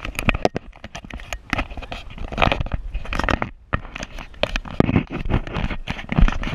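Handling noise on the camera's own microphone: irregular crackling, scraping and knocking as the camera is rubbed and moved about in the hand.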